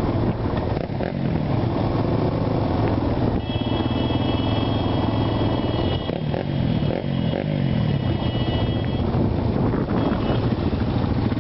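Small off-road engines of ATVs and a dirt bike running on the move, their pitch rising and falling as the riders speed up and ease off. A thin steady high whine rides over the engines for several seconds in the middle.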